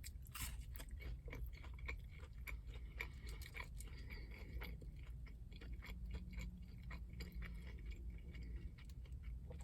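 A person chewing a chicken McNugget: faint, irregular mouth clicks and soft crunches.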